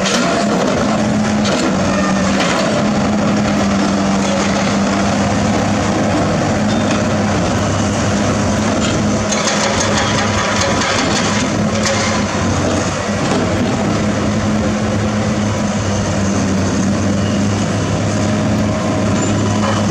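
Heavy construction machinery's diesel engine running steadily at a constant speed, with a low, even hum and a few short clicks or knocks near the middle.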